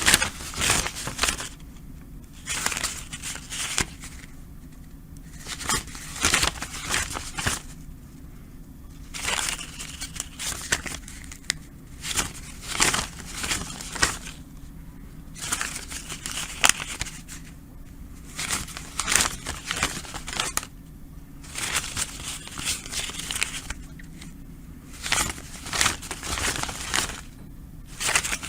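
Banknotes being counted by hand: runs of quick, crisp paper flicks as the notes are thumbed through, in bursts of a second or two separated by short pauses.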